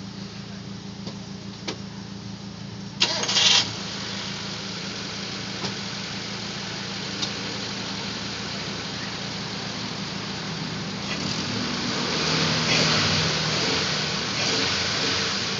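Car engine running steadily, with a short loud burst of noise about three seconds in and the engine growing louder around twelve seconds in. The engine is burning oil drawn into its intake manifold so that white smoke shows an exhaust leak.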